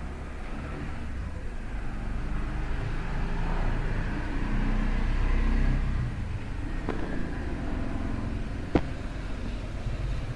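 Steady low background rumble, with a faint sharp click about seven seconds in and a louder one about two seconds later.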